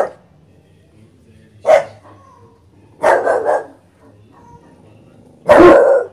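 English bulldog puppy barking aggressively in separate bursts: a short bark, then a longer run of barks, then a last bark that is the loudest and longest.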